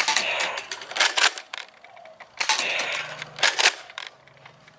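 Plastic toy blasters handled, with a run of clicks and clatter at the start and another burst of clicking about halfway through.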